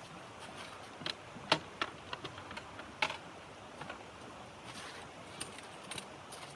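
Irregular light clicks and taps, scattered a few to the second and loudest about one and a half seconds and three seconds in, over a steady faint hiss.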